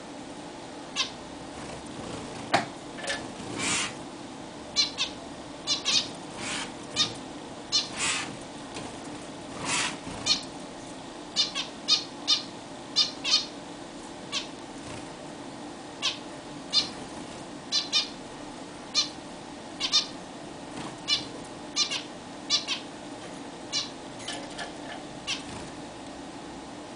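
Zebra finches calling: many short, nasal, high-pitched calls, scattered irregularly at up to a few each second, over a faint steady hum.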